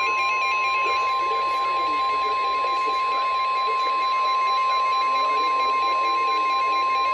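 NOAA Weather Radio warning alarm tone: a single steady, piercing 1050 Hz beep held unbroken. It is the alert that comes just before a warning message is read out, here a severe thunderstorm warning.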